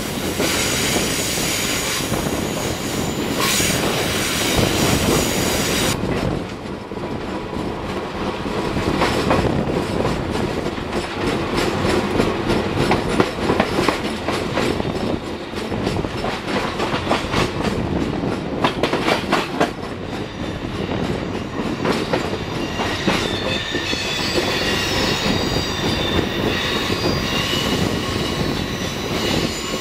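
Passenger train running along the track, heard from the train itself: a steady rumble with a rapid run of wheel clicks over the rails, then thin high wheel-flange squeal in the last several seconds as the train rounds a curve.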